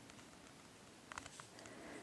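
Near silence: room tone, with a few faint clicks about a second in.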